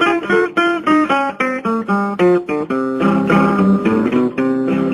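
Acoustic guitar instrumental passage: a quick run of single plucked notes, then fuller strummed chords from about three seconds in.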